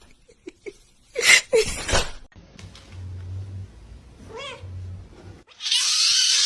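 A cat meowing: a short wavering meow about four and a half seconds in, then a loud, harsh, drawn-out yowl starting near the end, after a few short sharp sounds early on.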